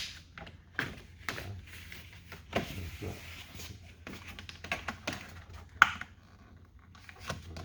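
Scattered light clicks and knocks of hard plastic door trim and hand tools being handled, with a brief scraping rustle about two and a half seconds in and a sharper click near six seconds.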